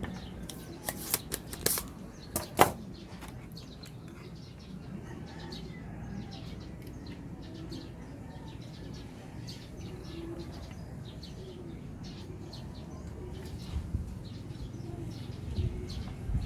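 A few sharp clicks and taps of tools and parts being handled on a workbench in the first few seconds, then a steady low hum with faint scattered ticks.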